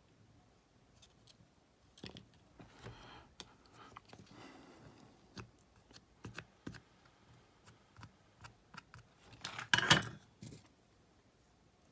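Scattered small clicks and short scrapes of hand tools working on small parts, with a louder scrape about ten seconds in.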